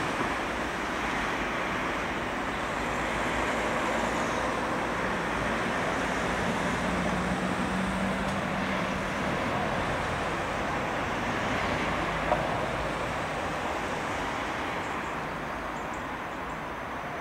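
Steady noise of road traffic, with one vehicle's engine hum standing out for a few seconds around the middle. A single short click comes about twelve seconds in.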